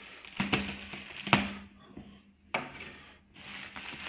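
Clear plastic wrap crinkling and rustling around a cardboard box as it is gripped and turned in gloved hands, with a couple of sharp knocks, over a steady low hum.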